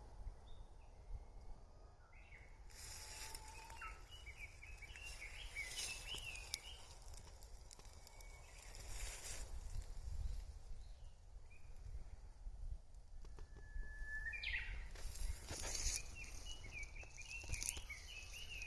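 Songbirds singing in two warbling runs, one held whistle sweeping sharply upward just before the second run, over a steady low rumble with short gusts of hiss.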